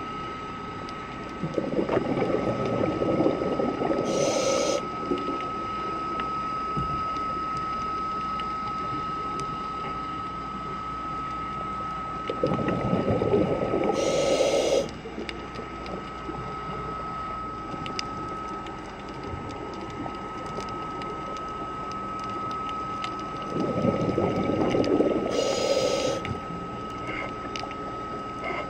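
Scuba diver breathing through a regulator underwater: three long bubbling exhalations about eleven seconds apart, each ending in a short hiss, with a steady high tone and faint ticking underneath.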